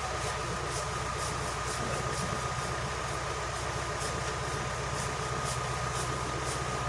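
A small engine idling steadily, with a steady high tone above it.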